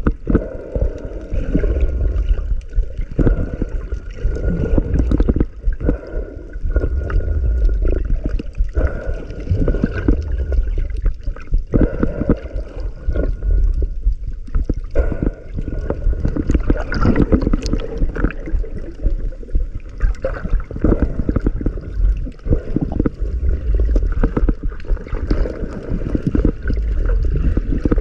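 Muffled water gurgling and rushing recorded underwater, with many short, irregular knocks and surges of sound.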